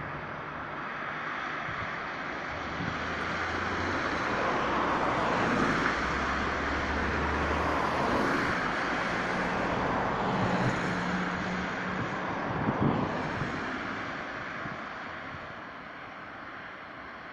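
Engine noise of passing traffic, swelling over several seconds, loudest through the middle, then fading away.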